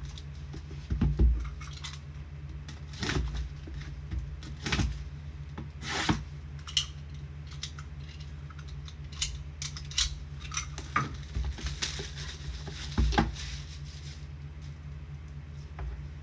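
Trading card packs being opened and cards handled: a scattered series of short crinkles, rustles and clicks over a low steady hum.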